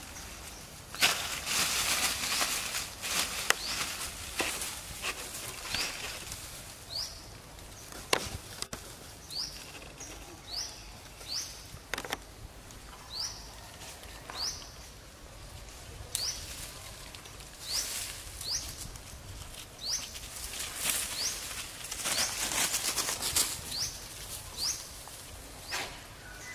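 Leaves and branches rustling in repeated bursts as pig-tailed macaques move through the undergrowth and climb the trees. A bird calls over it with a short rising chirp, about once a second, from a few seconds in.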